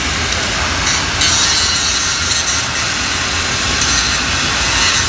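MIG (GMAW) welding arc crackling and hissing steadily as a vertical weld is run.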